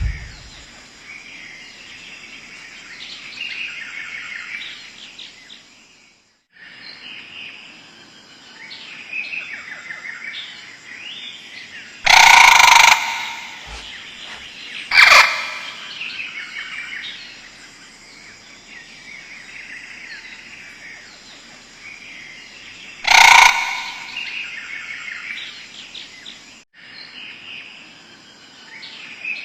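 Birds chirping and twittering, with three loud, brief blasts about twelve, fifteen and twenty-three seconds in.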